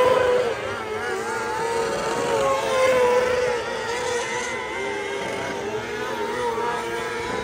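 A single small dirt-track race car's engine running hard, its pitch wavering up and down as the driver works the throttle.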